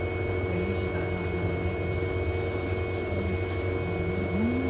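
Volvo B5LH hybrid bus running: a steady low drone with steady whining tones over it and no banging in this stretch.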